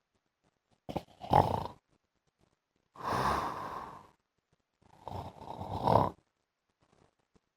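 A man snoring lightly in his sleep: three snoring breaths about two seconds apart, each lasting about a second, the last one growing louder toward its end.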